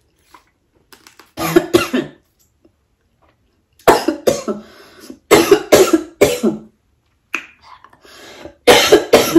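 A woman coughing hard in repeated fits of two to five coughs each, with short quiet gaps between the fits.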